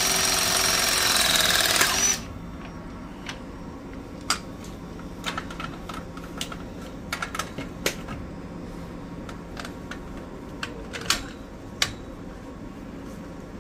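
A loud mechanical noise with a steady high whine cuts off about two seconds in. After it come scattered sharp metallic clicks and knocks as a press-fitting jaw is handled and fitted around a copper press fitting on the pipe.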